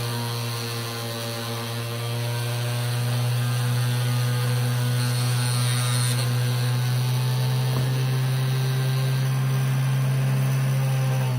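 Electric motor running at a steady speed with a strong, even low hum.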